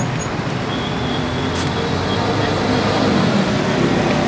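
Steady traffic noise from a busy road.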